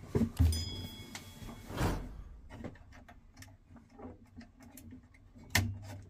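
Small clicks and knocks of hands handling parts at an open boiler, with a short high ring about half a second in and a louder knock near the end.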